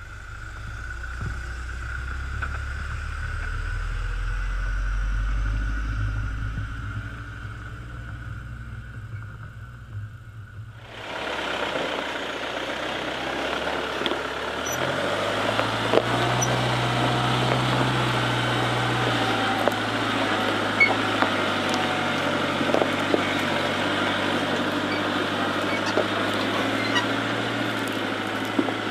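Iveco Daily 4x4's diesel engine pulling at low revs as the truck crawls over rocky off-road ground, swelling over the first several seconds. About a third of the way in the sound changes abruptly to a steadier engine note with a wide hiss and occasional sharp clicks.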